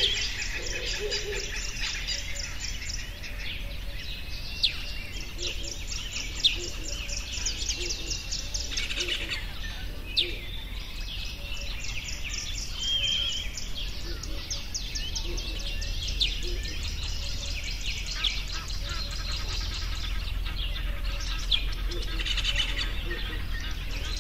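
Outdoor birdsong chorus: many small birds chirping and trilling in rapid runs, with a few sharper single chirps standing out now and then.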